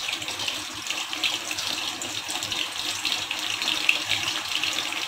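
Batter-coated naan deep-frying in hot oil in an aluminium kadai over a high flame: a steady sizzle thick with fine crackling.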